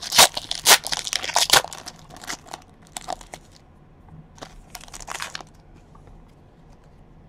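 Foil trading-card pack wrapper being torn open and crinkled by hand. The crackling is densest in the first two and a half seconds, with shorter rustles around three and five seconds in.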